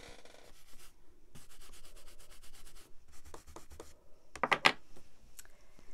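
An inked stamp being rubbed clean: bursts of rapid back-and-forth scrubbing strokes, then a few sharp clacks a little past the middle, which are the loudest part.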